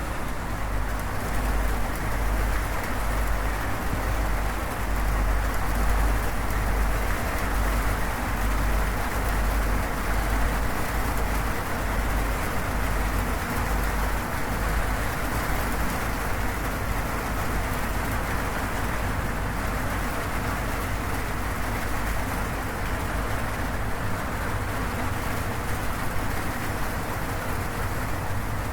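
Steady rain on a corrugated zinc roof: an even, unbroken hiss of drops with a deep low rumble underneath.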